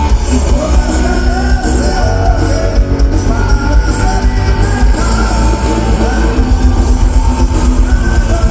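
Live rock band playing loud through a PA, heavy bass and drums with singing over it.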